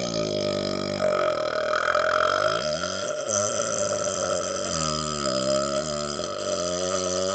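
A man's deliberate, very long burp: one unbroken belch with a wavering pitch. About a second in it turns rough and raspy for a couple of seconds, then steadies into a smoother, wobbling tone.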